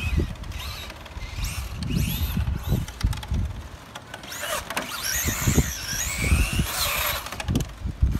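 Electric motor and drivetrain of a Traxxas Drag Slash RC car whining, the pitch rising and falling as the throttle is worked, loudest and longest in the second half. Low gusts of wind noise on the microphone come and go.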